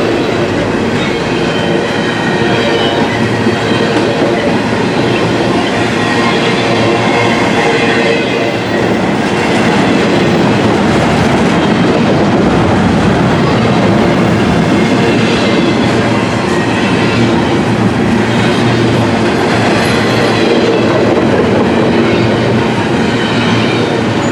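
CSX intermodal freight train of double-stacked container well cars passing close by: a loud, steady rumble and clatter of steel wheels on the rails.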